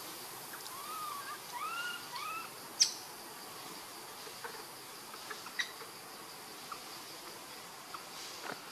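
Steady high-pitched drone of insects, with a few short rising-and-falling calls about a second in. A single sharp click just under three seconds in is the loudest sound, followed by a scatter of faint ticks.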